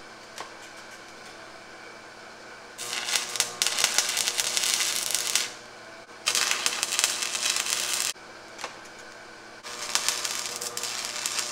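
Stick-welding arc from 6011 rod on a Hobart Stickmate LX, crackling and sizzling in three bursts of about two to three seconds each as tack welds are struck and broken off.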